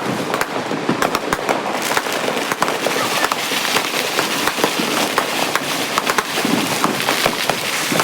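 Many firecrackers and fireworks going off at once, a dense, unbroken run of sharp bangs and crackles.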